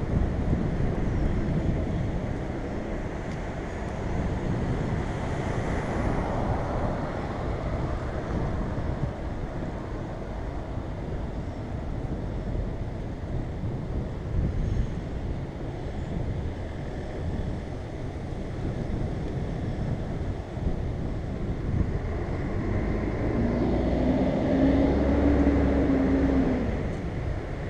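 Steady rumble of wind and city traffic picked up by a helmet-mounted camera on a moving bicycle. Near the end a vehicle's engine hum rises slightly in pitch and holds for a few seconds.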